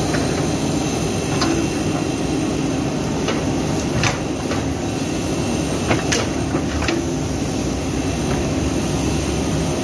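JCB backhoe loader's diesel engine running steadily under load as the backhoe digs, with a few sharp clicks and knocks from the working bucket and arm.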